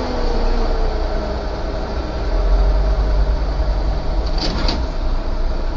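Steady low road and engine rumble of heavy traffic, heard from inside a car close behind a heavy truck. Two brief high squeaks come about four and a half seconds in.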